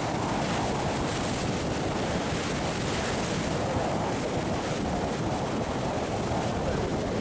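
Sea surf washing and breaking against shore rocks, a steady rushing noise, with wind buffeting the microphone.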